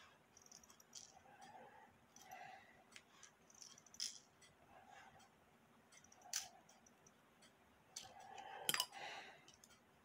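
Faint, scattered metallic clicks and small knocks from winding and handling the brass movement of a 1910 Waterbury ship's bell clock, with the loudest cluster of clicks near the end.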